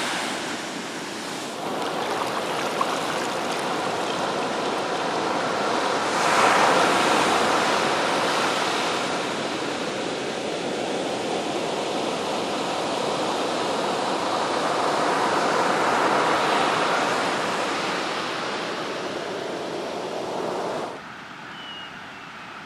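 Ocean surf breaking on a sandy beach, a steady rush of waves that swells louder about six and sixteen seconds in. Near the end it drops abruptly to a quieter, more distant wash of waves.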